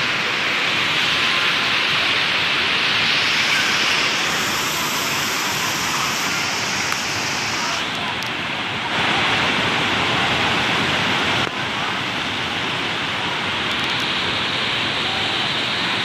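Steady loud rush of a waterfall and the water cascading over rocks below it, its tone changing abruptly about eight and again about eleven and a half seconds in.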